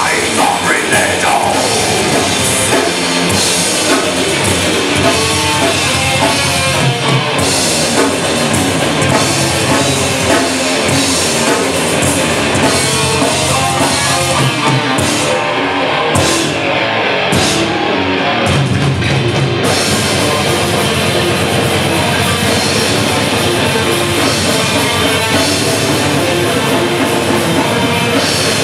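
Heavy metal band playing live: distorted electric guitars, bass and a drum kit with cymbals. The cymbals drop out a few times briefly about halfway through.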